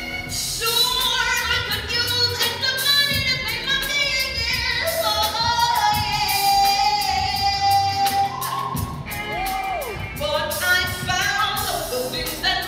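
A woman singing live into a microphone over a backing track with a beat, holding one long note around the middle, with a quick downward pitch slide a little before the end.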